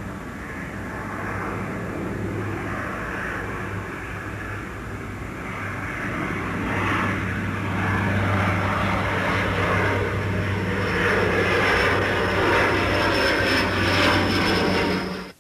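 Aircraft turbine engine running steadily with a low hum, getting louder through the second half, then cut off abruptly at the end.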